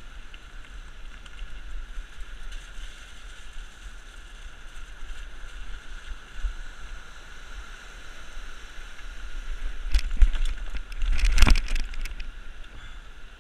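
Mountain bike on a rocky riverside path: the steady rush of fast-flowing river rapids, with wind rumbling on the microphone. About ten seconds in comes a run of loud knocks and rattles as the bike bumps over rocks.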